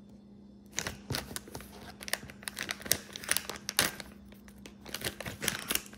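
A clear plastic packaging bag of action-figure parts being crinkled and pulled open by hand. The irregular crinkling and rustling starts about a second in and keeps on in quick, uneven bursts.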